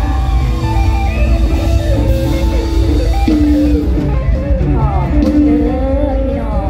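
Live mor lam band playing an instrumental passage: a plucked-string melody moving in steps and held notes over a heavy bass beat.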